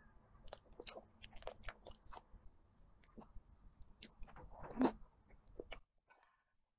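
Close-miked eating of soft cream cake from a metal spoon: a run of mouth clicks and smacks, with one louder smack about five seconds in. About a second before the end the sound drops to near silence, where the spoon scraping the plate has been turned down.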